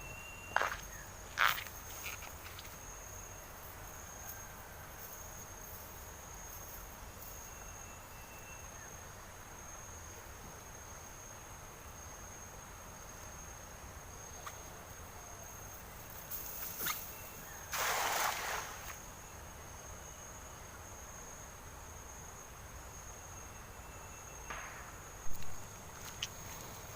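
Steady high-pitched insect chirring, likely crickets, in the riverside night-time-style ambience. A few sharp clicks and knocks come near the start and late on, with a rustling burst of about a second about two-thirds of the way through.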